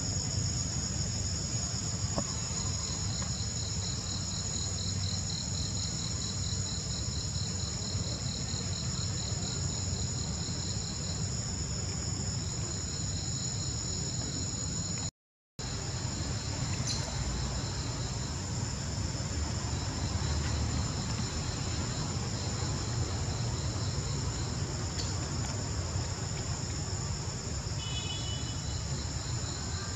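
Steady, shrill chorus of forest insects, with a fast-pulsing trill joining it for several seconds in the first half and a low rumble underneath. The sound cuts out for a moment about halfway.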